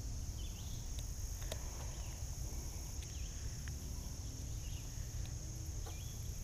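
Steady high-pitched drone of insects in summer vegetation, with a constant low rumble underneath and a few faint clicks and short chirps scattered through.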